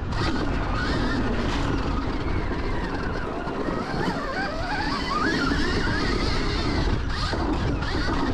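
Stark VARG electric motocross bike riding on a dirt track: its electric motor whines, the pitch gliding up and down with the throttle and climbing around the middle, over a steady rushing noise.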